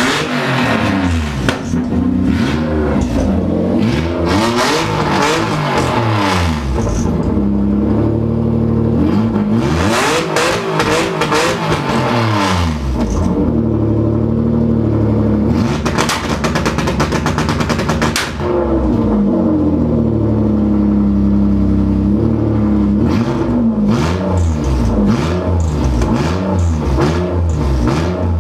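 Car engine running through an open exhaust dump, revved over and over: its pitch climbs and falls in a series of blips, held high for a couple of seconds about two-thirds of the way through, then quick short blips near the end.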